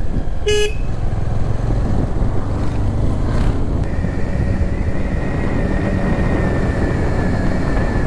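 Bajaj Avenger 160 motorcycle riding along a road, its single-cylinder engine and the road noise running steadily, with one short horn toot about half a second in. A thin whine comes in about four seconds in and slowly drops in pitch.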